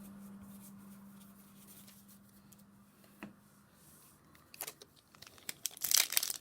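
Foil booster pack wrapper being crinkled and torn open. It starts as scattered crackles about four and a half seconds in and grows into loud, dense crinkling near the end, after a quiet stretch with a faint steady hum.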